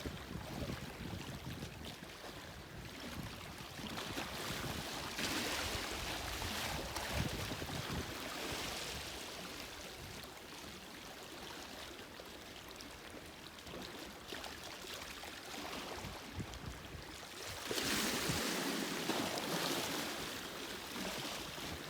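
Sea waves washing onto a shore, a steady rushing surf that swells twice, about five seconds in and again near the end.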